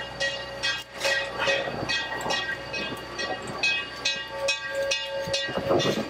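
0-6-0 switcher steam locomotive working under load, its exhaust chuffing in a steady rhythm of about three beats a second, growing louder near the end as the engine passes close.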